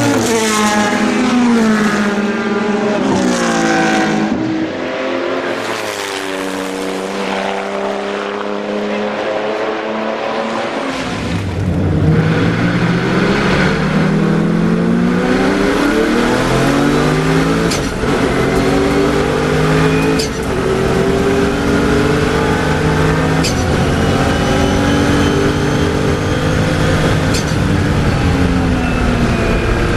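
Porsche 993 GT2 EVO's twin-turbo flat-six racing engine. It is first heard passing trackside, its pitch falling as it goes by; about eleven seconds in it switches to inside the cockpit, running hard and rising in pitch through the gears, with brief dips at the gear changes.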